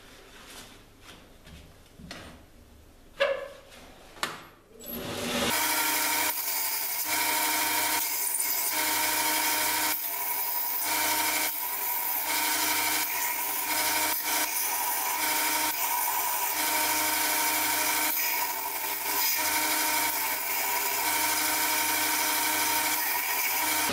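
A couple of knocks, then about five seconds in a belt grinder comes in and runs steadily, a fixed whine with the hiss of the abrasive belt on steel, rising and falling slightly as the blade is worked against it: trimming the tang of a forged kitchen knife.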